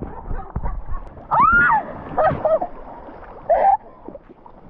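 River water splashing and gurgling with a low wind-like rumble as people get back into the river on inner tubes, with a woman's high rising squeal about a second in and a couple of short exclamations after it.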